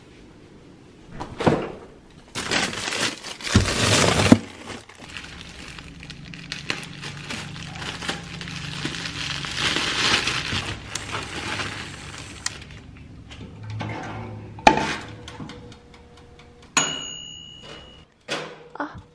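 Plastic bread bag crinkling as it is handled and opened, with several knocks and clatters of kitchen handling. Near the end comes a sharp clink with a brief high ring, as a plate and the glass door of a toaster oven are handled.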